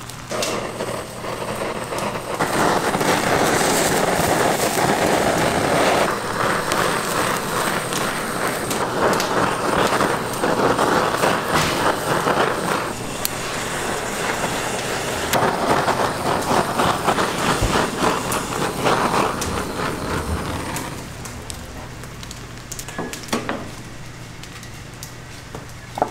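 Crackling and sizzling of chicken roasting over a wood fire. It swells about two seconds in, stays loud and uneven with many small pops, and dies down in the last few seconds.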